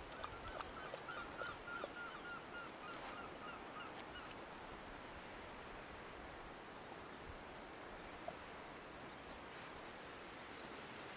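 A seabird calling from the cliffs below: a quick run of about a dozen repeated notes in the first three seconds, and a shorter run about eight seconds in, over a steady hiss of wind and distant surf.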